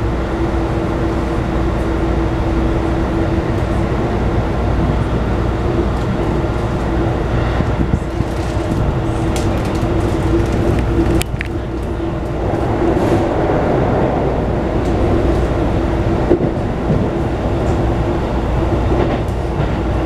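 Running sound heard inside a Keikyu New 1000 series commuter train car with Toyo IGBT-VVVF equipment, the train moving at speed: an even rumble of wheels on rail with a steady hum and a few clicks. About eleven seconds in there is a sharper click, the hum fades and the noise dips briefly before settling again.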